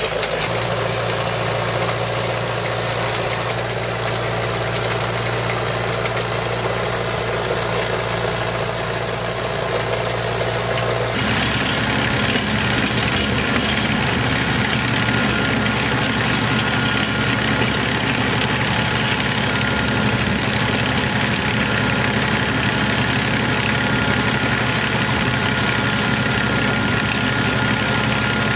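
Tractor engine running steadily while powering an AFT 100 trencher. About eleven seconds in the sound changes abruptly to a different steady engine sound with a faint high whine.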